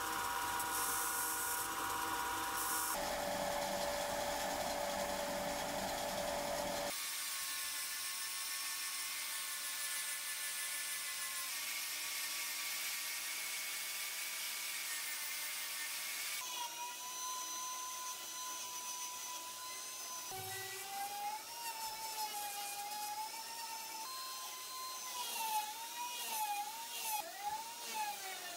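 A small high-speed electric tool motor whining through several short cut-together clips. In the later clips its pitch dips and recovers again and again, as when the tool is pressed against the work.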